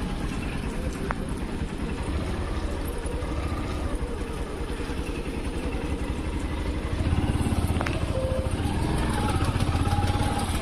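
A motor vehicle engine running, growing louder from about seven seconds in.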